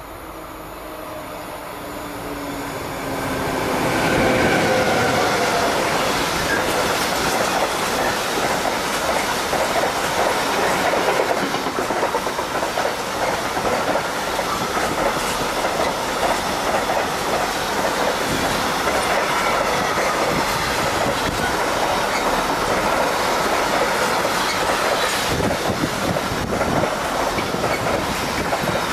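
Container freight train passing close by. Its approach brings a rising rumble with a whine that drops in pitch as the locomotive goes past about four seconds in. Then comes the steady rolling clatter of the container wagons' wheels over the rails, with some wheel squeal.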